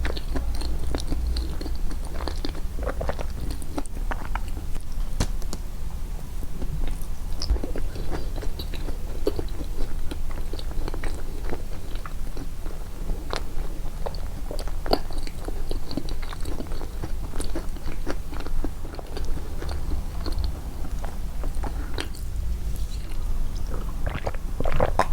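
Close-miked mouth sounds of eating walnut and banana yogurt cake: irregular biting, chewing and wet smacks, with small crunches from the walnut pieces.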